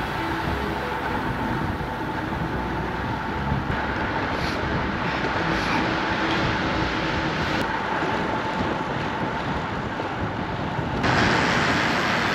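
Steady rush of wind and tyre noise from riding a road bike, heard on a ride-mounted camera. It gets louder and brighter about eleven seconds in.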